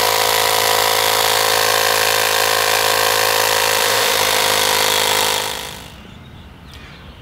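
Slime 12-volt portable air compressor running steadily, pumping air into a motorcycle tire to seat its beads, with an even mechanical hum and hiss. It fades out over the last seconds.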